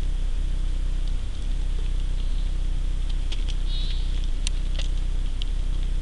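Light clicks and patters from snow-laden branches, scattered through the second half, with one sharper click about four and a half seconds in and a brief high warble just before it. Under it all runs a steady low hum.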